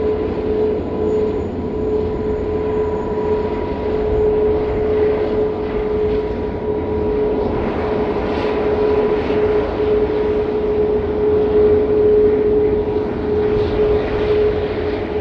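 Airbus A380 jet engines running at low taxi thrust: a steady whine over an even rumble, with no change in pitch.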